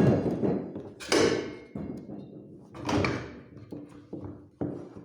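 Metal parts of a manual tire-changing stand being handled: three or four clanks and scrapes about a second and a half apart, each ringing briefly.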